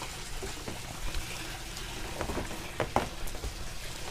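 Water trickling and splashing in the fish-tank sump, with a few light knocks and clicks from handling the pump and its line.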